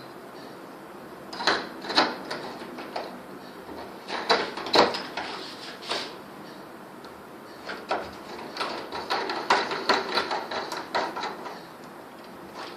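Metal doorknob parts clicking and knocking as the cover plate and knob are fitted onto the door, in several short clusters of clicks.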